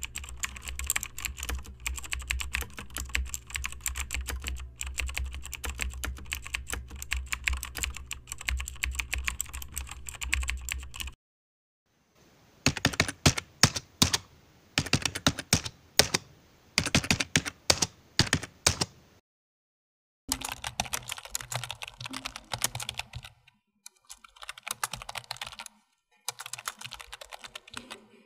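Computer keyboard typing in several separate takes. The first is fast continuous key clicking over a steady low hum and stops about 11 seconds in. After a brief silence come bursts of loud key clicks in quick groups, then another pause and more typing in short runs.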